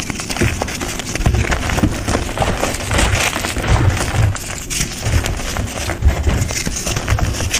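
Dry, crumbly powdery chunks being crushed and crumbled by hand, with continuous crunching and crackling, dull thuds as the hands press down, and dusty powder shifting.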